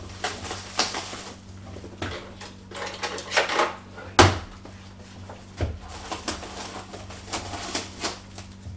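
Cellophane wrapping on a package crinkling and tearing as it is pulled open, in irregular rustles and crackles. There is a sharp click about four seconds in and a low knock shortly after.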